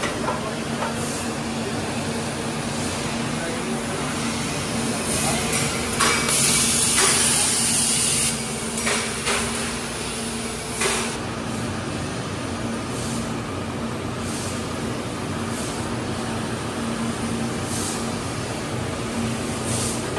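Factory machinery noise: a steady hum with scattered knocks and clatter, and a burst of hissing about six seconds in that lasts some two seconds.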